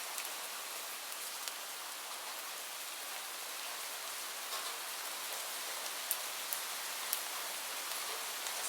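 Steady rain falling on a surface, an even hiss with a few sharper drop ticks standing out now and then, mostly in the second half.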